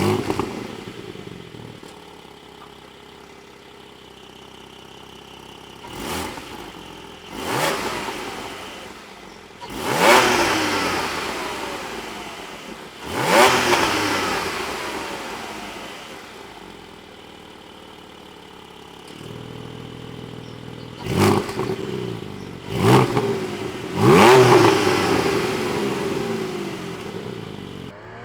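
Porsche 718 Boxster GTS 4.0's naturally aspirated flat-six, parked, flaring briefly and then idling before being revved again and again. Each rev climbs sharply in pitch and sinks slowly back to idle; the biggest come about ten and thirteen seconds in, and there is a quick cluster of three near the end.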